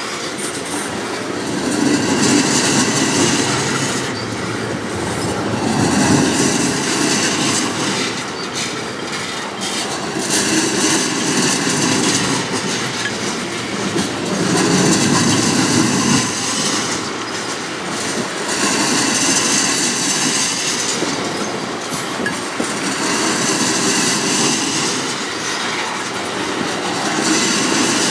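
Freight train tank cars rolling past on steel rails: a steady rumble of wheels on track that swells about every four seconds as each car's trucks go by, with short wheel clicks over the rail.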